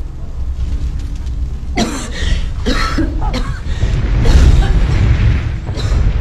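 A woman coughing several times, choking on thick smoke, over a low steady rumble that grows louder in the second half.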